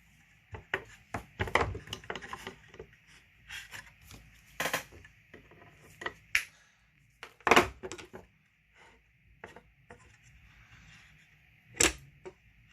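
Irregular clicks, taps and light clatter of small parts and tools being handled on a workbench, with a few sharper knocks, the loudest about halfway through and again near the end.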